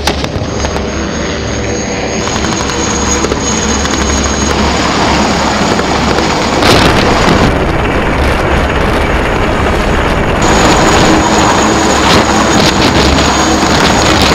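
Romanian IAR 330 Puma military helicopter running close by: steady loud rotor noise with a high turbine whine, and a brief louder burst about seven seconds in.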